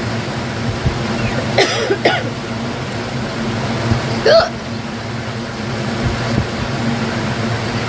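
A woman hiccupping three times: two hiccups half a second apart, then a third about two seconds later. A steady low hum runs underneath.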